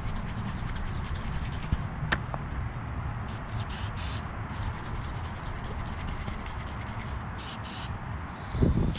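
Rust converter being applied to a rusty metal scoop, heard as a few short hissy strokes about three seconds in and two more near the end, over a steady low rumble.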